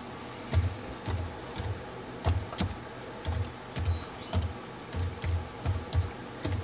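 Slow, irregular typing on a computer keyboard: single key presses, each a sharp click with a soft thud, about two or three a second.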